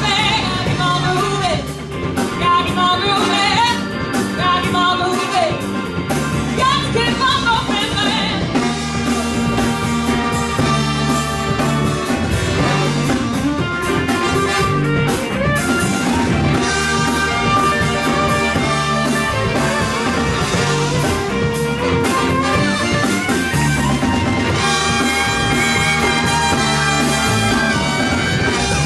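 Live rock band with a horn section playing a funk-rock song: drum kit, bass, guitar, saxophone, trumpets and trombone, with singing.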